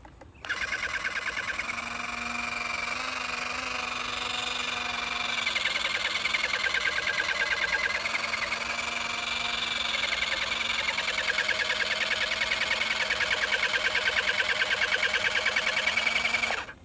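Electric water gun's pump motor running in one continuous burst, a fast pulsing whir that starts suddenly and cuts off suddenly near the end.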